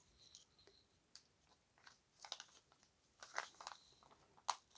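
Near silence with a few faint rustles and clicks of plastic card holders and taped packaging being handled, in small groups about two seconds in, around three and a half seconds in and near the end.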